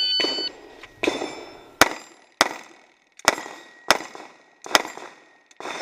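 A shot timer's short beep, then a string of about seven pistol shots at steel plates, roughly one every three-quarters of a second, with the steel ringing after hits.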